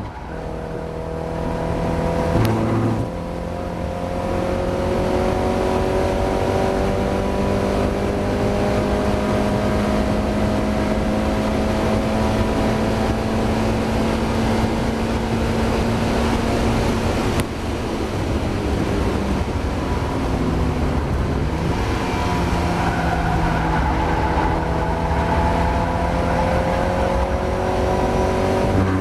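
Mazda MX-5 race car's four-cylinder engine pulling hard at speed, its note climbing steadily through long stretches. There are brief breaks for gear changes about three seconds in and again past halfway, and a short dip and recovery of the note a little later.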